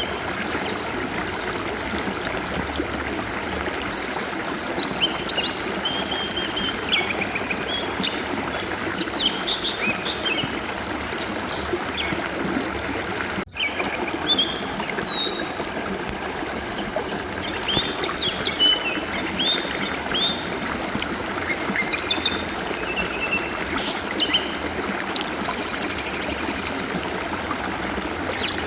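Water flowing steadily, with an oriental magpie-robin (kacer) singing over it in varied whistles and chirps. A split-second dropout cuts through the sound about halfway through.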